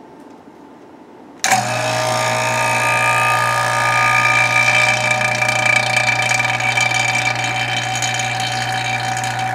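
Electric 6 CFM vacuum pump switching on about a second and a half in, then running steadily with a low hum under several steady higher tones as it pulls a vacuum on the small dry-ice-chilled collection tank of a mini closed-loop extractor.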